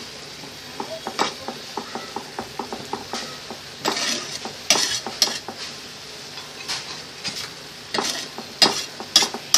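Chicken frying in butter in a frying pan with a faint steady sizzle, while a metal utensil taps and scrapes against the pan and the chicken. There is a run of light taps in the first few seconds, then sharper scrapes around the middle and again near the end.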